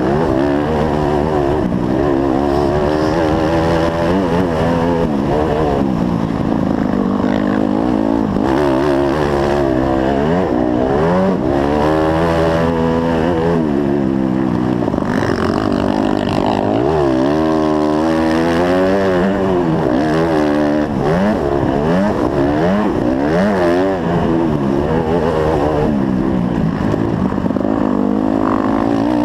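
Dirt bike engine being ridden hard, revving up and down over and over, its pitch climbing and dropping with throttle and gear changes.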